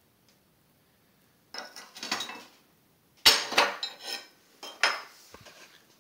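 Cast iron cooktop lids of a Shipmate 212 wood-and-coal ship's range being lifted off to open the firebox. It begins with a scraping metal rattle, then a loud clank with clatter, and two lighter knocks near the end.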